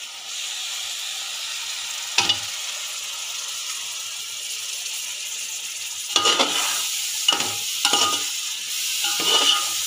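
A green coriander–mint paste with onion, ginger and garlic sizzles steadily in hot oil and ghee in a metal pot as the masala is sautéed for biryani. There is one knock about two seconds in. From about six seconds a slotted steel ladle scrapes and stirs against the pot in repeated strokes.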